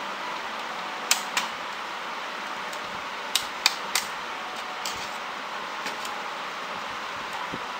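Sharp clicks and taps of small printer parts being handled inside an opened Epson L380 inkjet printer: a pair about a second in, three quick ones in a row a little past the middle, and a couple of fainter taps later, over a steady hiss.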